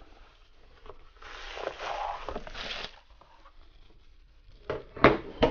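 Packaging being handled: a cardboard gift box opened with a stretch of rustling, sliding noise, then three sharp knocks near the end as the bubble-wrapped doll is lifted out and handled.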